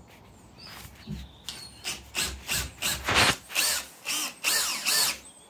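A cordless drill drives a screw through a door frame into the timber opening. It runs in a rapid string of short trigger bursts, each a brief whine that rises and falls, starting about a second and a half in.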